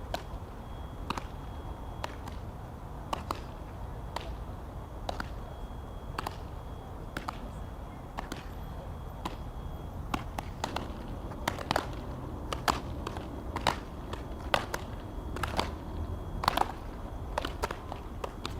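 Softballs smacking into leather fielding gloves in a run of sharp pops, about one a second at first and coming faster in the second half, as paired players catch and throw back as quickly as they can with two balls in play.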